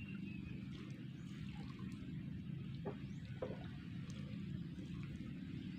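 Open-water ambience: a steady low rumble, with water lapping around anglers standing in the lake. Two faint short sounds come about three seconds in.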